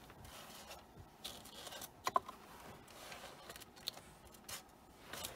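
Faint handling sounds as a fine metal necklace chain on a card display is moved and laid out on a tabletop: light scrapes and small clicks, a few sharper ticks about two seconds in.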